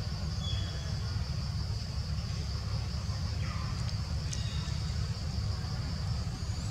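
Steady outdoor background noise: a low rumble underneath a constant high-pitched drone, with a few faint chirps and a single click about four seconds in.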